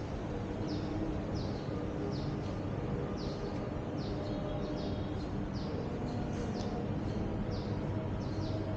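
A bird chirping over and over: short falling chirps, about one or two a second, over a steady low hum of city traffic.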